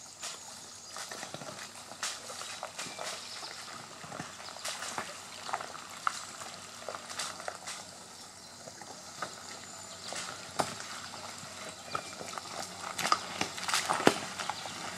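Tyres of a Ford Explorer SUV crunching over loose rocks and gravel as it crawls slowly along a stony trail, with irregular clicks and snaps of stones. It gets louder over the last few seconds as the vehicle comes close.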